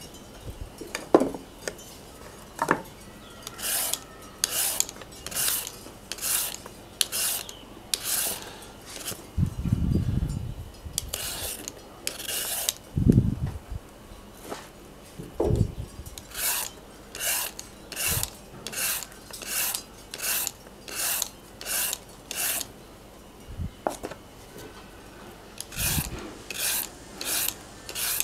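Hand vegetable peeler scraping down a raw carrot in runs of short, even strokes, roughly one every 0.7 s, with pauses between the runs. A few dull knocks come near the middle.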